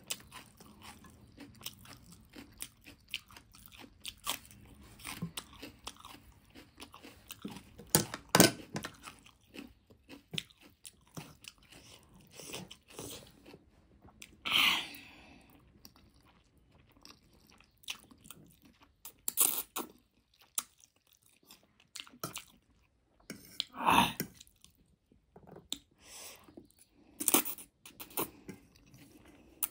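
Close-up mouth sounds of eating spicy noodles: wet chewing and smacking with many small clicks, and a few louder slurps as strands of noodle are drawn into the mouth.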